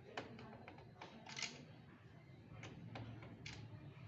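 Faint, scattered clicks and short scrapes of screws being undone from the plastic back cover of an all-in-one PC, with a screwdriver working the screws.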